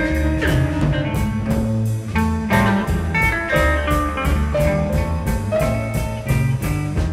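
Electric blues band playing an instrumental passage with no singing: guitar over electric bass and a steady drum-kit beat.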